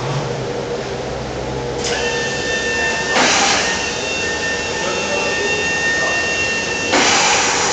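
Industrial welding robot cell running: a steady high whine from the robot arm's drives starts about two seconds in and stops near the end, over a constant machinery hiss. Two short, loud hissing bursts come about three and seven seconds in.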